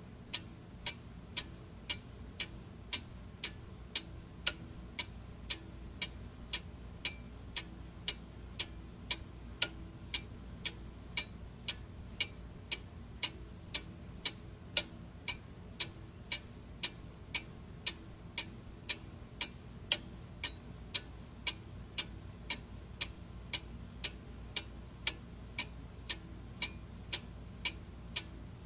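Clock ticking steadily at about two ticks a second, with a faint low hum underneath.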